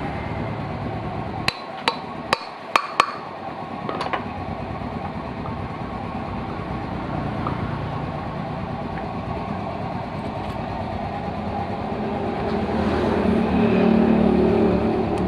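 An engine running steadily, with five sharp metallic knocks a couple of seconds in; the engine note grows louder near the end.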